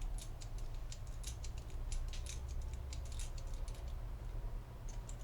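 Lockpick turning in a GERDA lock cylinder, metal parts giving a run of light, irregular clicks that thin out after about three and a half seconds, over a steady low hum.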